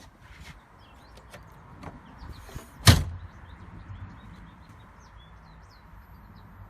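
Truck camper's back door shut with one sharp bang about three seconds in, after a few light clicks and a brief rustle. Birds chirp faintly.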